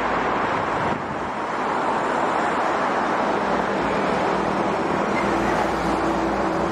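Steady noise of dense highway traffic: the tyres and diesel engines of trucks and cars passing at speed. From about halfway through, a passing heavy vehicle's engine hum stands out as a steady low tone.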